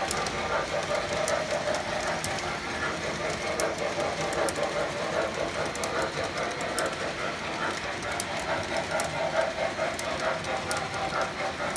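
Long model passenger train rolling past on its track, a steady rumble of metal wheels on rail with scattered sharp clicks.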